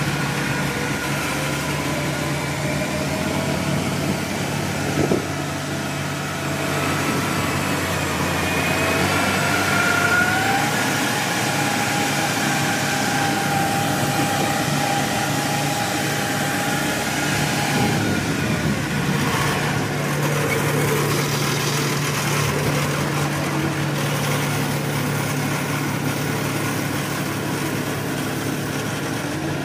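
Kubota DC70-series combine harvester's diesel engine running steadily as the machine crawls along on its rubber tracks. A whining tone rises about eight seconds in and holds for several seconds, and there is a single knock about five seconds in.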